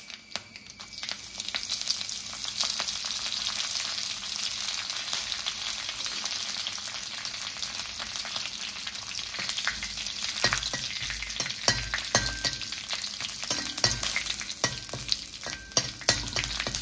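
Mustard seeds popping and spluttering in hot oil in a kadai, with dried red chillies and curry leaves sizzling: the tempering at the start of a Kerala curry. The sizzle swells about a second in, sharp pops run all through, and from about ten seconds in a spoon knocks and stirs in the pan.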